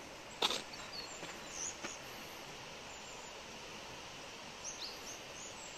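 Outdoor ambience: a steady hiss with small birds giving short high chirps, a few of them near the end, and a few footsteps on a gravel path, the loudest about half a second in.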